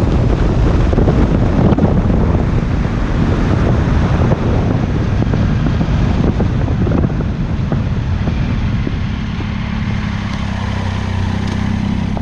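Motorcycle riding at road speed, heard from a bike-mounted camera: heavy wind rush over the microphone with the Triumph Tiger 800's three-cylinder engine underneath. Toward the end the wind eases and the engine's steady hum comes through more clearly.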